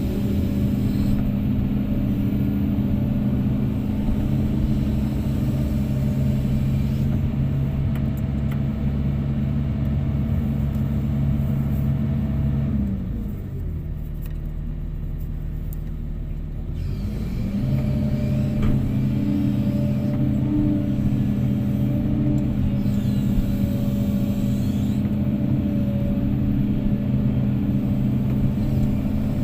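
Heavy diesel engine running steadily at working speed, dropping to a lower idle for a few seconds about midway, then speeding back up to the same steady pitch.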